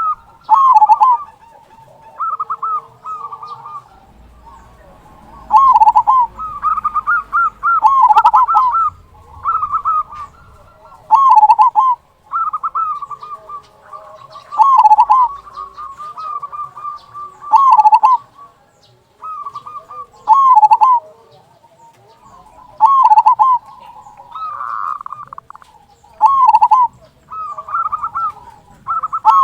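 Zebra doves (perkutut) cooing: repeated rolling phrases, each ending in a deep 'kung' note, with a loud phrase every two or three seconds and softer cooing between.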